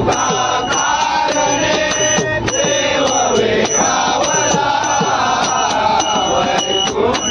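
Group of men chanting a Marathi devotional abhang in chorus, kept in time by a steady metallic beat of small hand cymbals.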